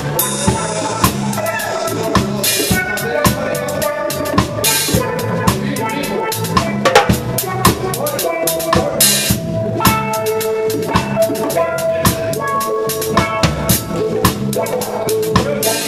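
Reggae band playing, heard up close at the drum kit: steady drum-kit groove with several cymbal crashes, loudest over the pitched instruments of the band.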